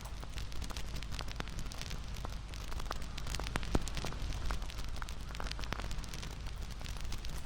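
Crackling campfire: a steady low rumble of burning wood with irregular snaps and pops, one louder pop a little after the middle.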